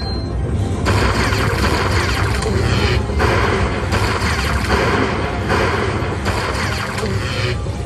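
Aristocrat Lightning Link slot machine (Eyes of Fortune game) sounding its bonus feature: electric lightning crackles and booms over the game music, coming in repeated strikes while the win meter counts up.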